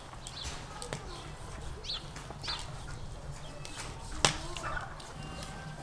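Quiet outdoor background with a few short bird chirps, and a single sharp knock on the wooden table or cutting board about four seconds in as the fish are handled.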